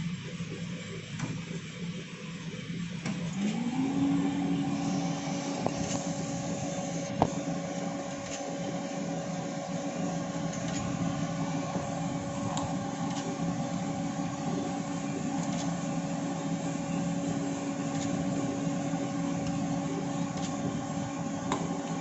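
Coffee roasting machine's electric motor spinning up about three seconds in, rising in pitch, then running at a steady hum, with a few light clicks.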